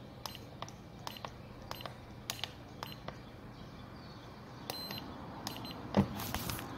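Electric fan motor switched on but stalled, its shaft not turning, giving only a faint steady low hum; scattered light clicks and a knock about six seconds in. The owner blames the stall on worn bushings (sleeve bearings) that lubrication did not cure.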